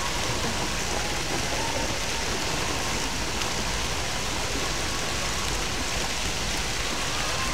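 Steady splashing hiss of water streams pouring from fountain spouts into a swimming pool.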